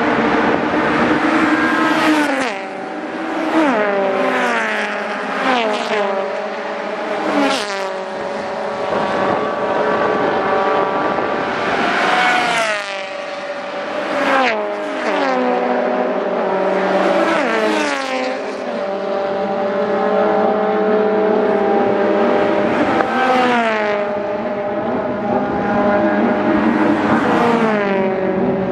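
A stream of Honda four-cylinder race cars passing at high revs one after another, about ten of them, over a steady engine drone. Each engine note falls in pitch as the car goes by.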